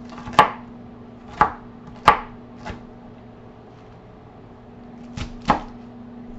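Large kitchen knife chopping through cabbage down onto a cutting board: four sharp chops in the first three seconds, the last one lighter, then two more about five seconds in.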